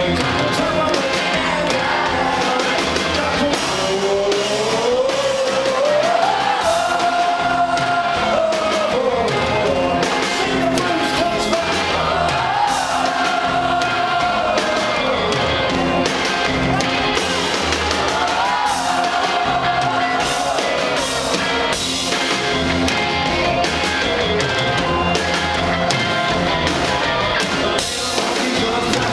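Live rock band playing, with a man singing lead into a microphone in long held notes that rise and fall.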